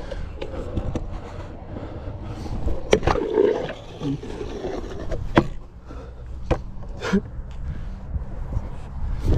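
Stunt scooter wheels rolling on a concrete skatepark surface, a steady low rumble, broken by several sharp clacks of the scooter knocking against the concrete.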